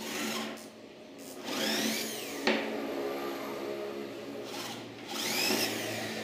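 Electric hand drill boring a small bit into a wooden board: the motor whine rises and falls in short runs, about a second and a half in and again about five seconds in, with a steadier stretch between. A sharp click comes about two and a half seconds in.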